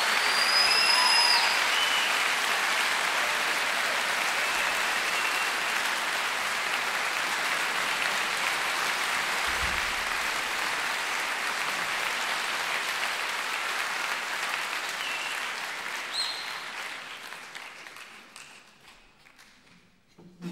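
Concert audience applauding at the end of a live solo piano recording, with a few whistles from the crowd. The applause fades away over the last few seconds.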